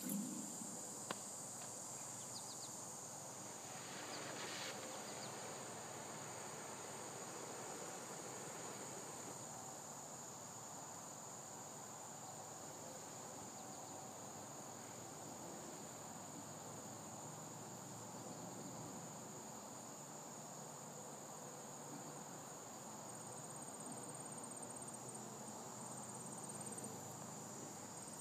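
Faint, steady, high-pitched drone of insects chirping in the grass and trees.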